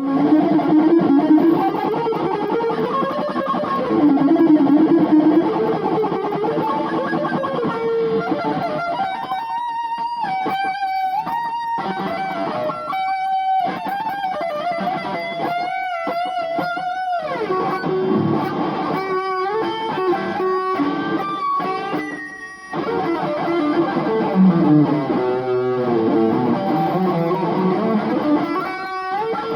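Electric guitar playing a rock-and-roll solo: chords and runs at first, then single held notes with bends and vibrato from about nine seconds in. The sound is thin and dull, recorded on an old phone.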